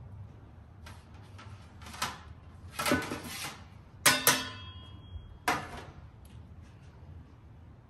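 Metal pizza peels knocking and clattering as they are handled and set down on a metal prep table: scattered knocks, with the loudest being two sharp metallic clanks about four seconds in that ring briefly.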